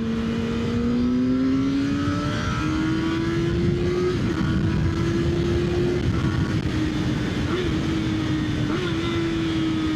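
Kawasaki ZX-6R inline-four sport bike engine pulling under way: its note climbs over the first few seconds, then holds at high revs with brief small wobbles a few times.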